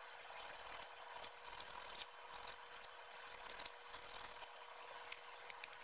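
Faint hand sanding with sandpaper on the parts of a broken eVic vape mod, being roughed up lightly before gluing. It comes as irregular short scratchy rubbing strokes.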